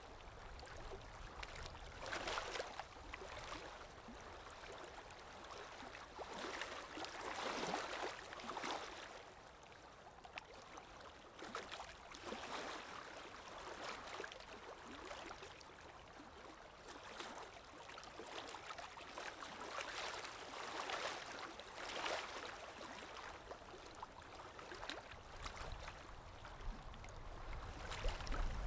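Running water from a gurgling stream, a steady rushing with swells that rise and fall every few seconds.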